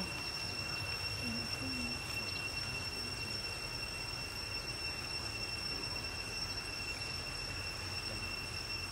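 Insects droning steadily: a constant high-pitched whine held at one pitch, over a low background rumble.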